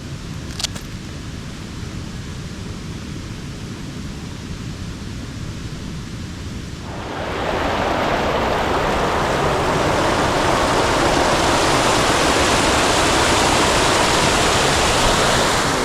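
Creek water rushing: a steady hiss that comes in suddenly about halfway through and stops abruptly at the end, over a low, steady rumble.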